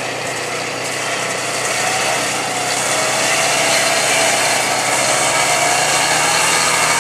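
Four-wheel-drive ATV engine running hard at steady high revs as it pushes through a mud hole, getting a little louder over the first few seconds and then holding.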